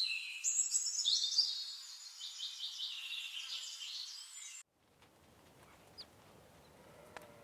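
Birds chirping and twittering in quick high trills, cutting off abruptly about four and a half seconds in. A faint hiss with a couple of soft clicks follows.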